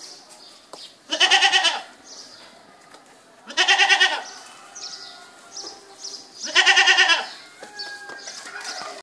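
Goats bleating: three loud, quavering bleats about two and a half seconds apart, with fainter bleats from other goats in between.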